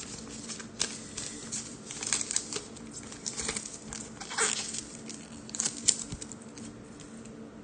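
Clear plastic team bag crinkling and rustling in irregular crackles as a jumbo trading card is slid into it.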